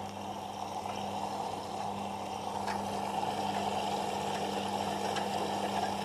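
Whirlpool FL 5065 front-loading washing machine filling for a rinse: water rushes in through the detergent drawer over a steady electrical hum, the rush growing gradually louder.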